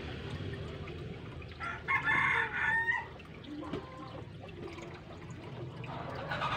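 A rooster crows once, starting nearly two seconds in and lasting just over a second, over water trickling steadily into the fish tank.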